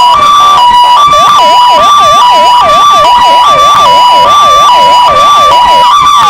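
Two electronic sirens, a Vittal and a Kingvox SPMX, sounding together, very loud. One steps back and forth between two tones (hi-lo). From about a second in until near the end, the other adds a fast rising-and-falling yelp, about two and a half sweeps a second.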